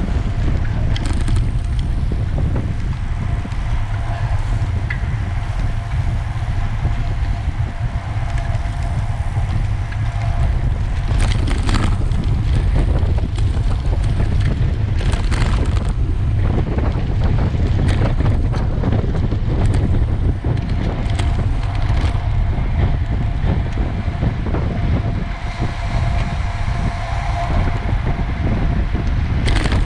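Wind buffeting the microphone of a camera on a moving racing bicycle: a heavy, steady rumble, with a faint steady hum and scattered rattling clicks from the bike over the road surface.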